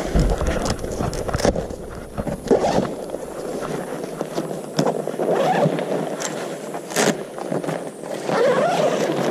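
Nylon tent fabric rustling and crinkling while a tent pole is handled over it, with a few sharp clicks and knocks from the pole.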